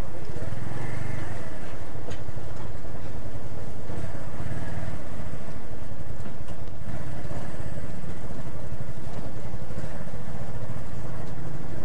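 Motorcycle running at road speed: a steady engine rumble mixed with wind noise on the microphone.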